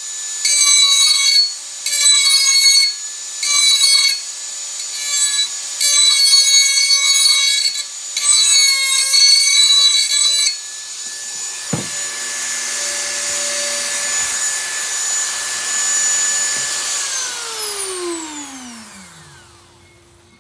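Dremel 4000 rotary tool running with a steady high whine, its grinding bit pressed against a steel tool blade in a string of short gritty grinding strokes as the blade is sharpened. After about ten seconds it runs free, with one knock a little later. Near the end it is switched off and winds down, its whine falling in pitch.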